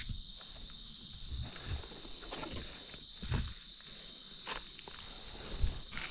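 Steady high-pitched insect chorus, with a few footsteps and rustles underneath.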